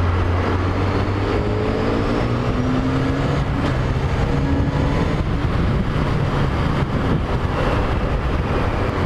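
Honda CBR600F4i's inline-four engine revving up under hard acceleration, its pitch climbing over the first few seconds, over a steady rush of wind. This is a test of the high-rev fuel supply, which the owner suspects is running lean.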